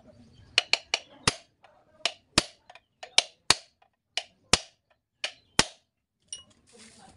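Metal punch being hammered onto brake-lining rivets to set them, with the rivet heads held on a homemade anvil: about a dozen sharp metallic strikes, often in quick pairs, stopping a little over five seconds in.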